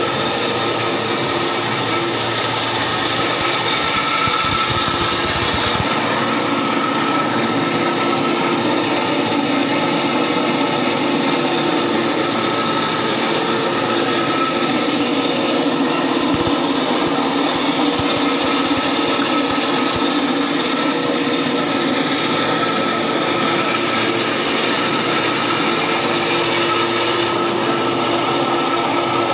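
Small electric cattle-feed pellet mill running under load, pressing feed mash into pellets: a steady machine hum with a grinding rub and a few held tones that never let up.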